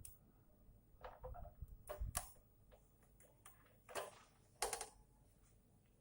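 A few separate sharp clicks and light knocks of tools and parts being handled while working on a power amplifier, the loudest about two seconds in and just before five seconds.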